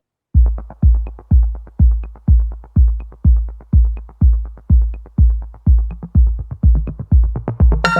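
Electronic background music: after a brief gap, a steady heavy kick-drum beat at a little over two beats a second with light ticks over it. A bright synth melody comes in near the end.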